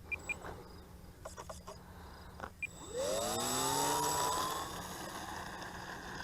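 Electric motor and propeller of a Hobby King Hummer RC flying wing spooling up, a rising whine that starts about two and a half seconds in, holds at high throttle and then eases off. A few light clicks come before it.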